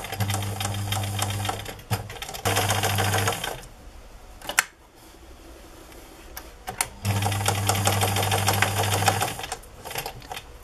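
Electric domestic sewing machine stitching velcro onto fabric in three runs: two short runs close together, then a pause of about three and a half seconds with a few sharp clicks, then a final run of about two seconds before it stops.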